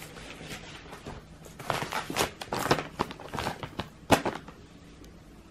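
Rustling and crinkling of a plastic baby-wipes packet as hands work at it during a nappy change, with a sharp click about four seconds in.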